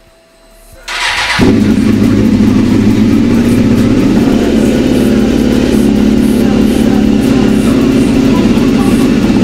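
2003 Suzuki GSX-R600 inline-four engine starting about a second in, catching after a brief crank. It then idles steadily and loudly through its new Micron aftermarket muffler.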